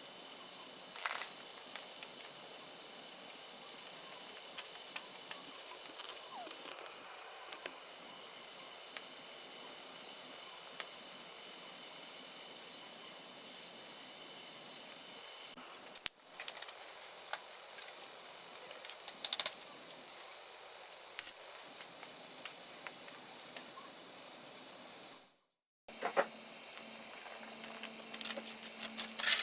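Wood fire crackling in a stainless steel fire pit: scattered pops and snaps over a steady hiss. The sound breaks off for a moment near the end and comes back louder.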